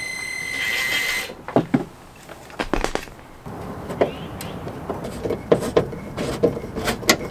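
A cordless drill-driver runs for about a second with a steady whine, then stops. After it come scattered light clicks and knocks of hand tools working loose plastic trim fasteners on a van.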